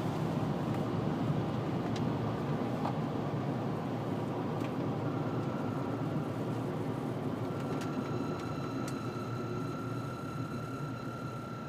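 Road noise inside a car cabin fading as the car slows under braking, while a steady high whistle comes in about halfway and holds, with higher overtones joining it near the end. The whistle sounds only with the air conditioning on, like a belt rubbing, and came from a faulty air-conditioning fan, which replacing the fan cured.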